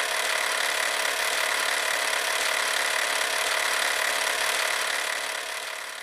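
A steady, noisy whirring sound effect with a faint high whine in it, fading out at the end.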